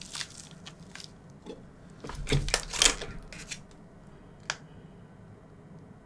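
Crunching, scraping handling noises of a young coconut being worked at with its opener tool and straw, bunched together about two to three seconds in, then one sharp click.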